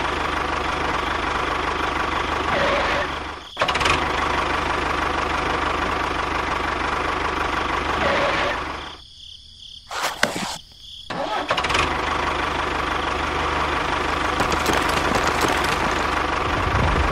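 Tractor engine running steadily. It cuts out for a moment a few seconds in, then drops away for about two seconds past the middle, with a couple of clicks in the gap, before running again.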